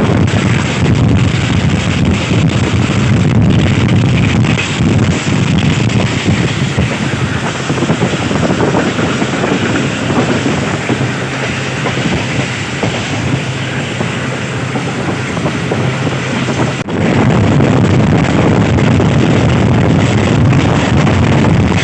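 Bolan Mail passenger train running at speed: the steady rumble of the moving carriage with wind blowing on the microphone.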